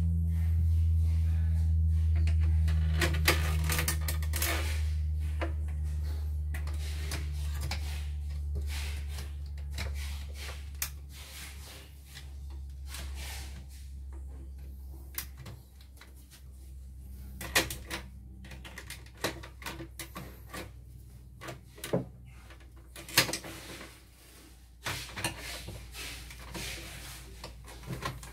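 Scattered clicks and knocks of a screwdriver and metal parts on the bare frame of a CNY embroidery machine being worked on by hand. Under the first part is a deep steady hum that fades away over about ten seconds.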